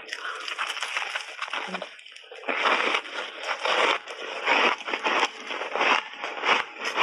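Close-miked crunching of a big bite of refrozen ice chunk coated in matcha and milk powder, being bitten and chewed: a dense run of crisp crunches, growing louder from about two and a half seconds in.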